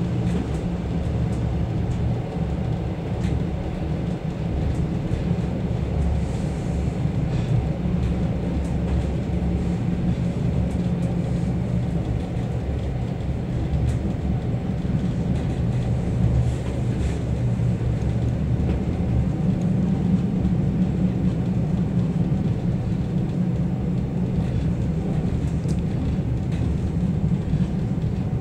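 Suburban passenger train running, heard from inside the carriage: a steady deep rumble of the wheels on the rails.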